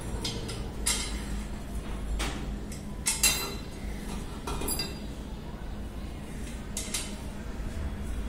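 Metal parts of a satellite dish mount clinking and knocking as a tube is handled and fitted to its bracket: a handful of sharp clinks spread out, the loudest about three seconds in.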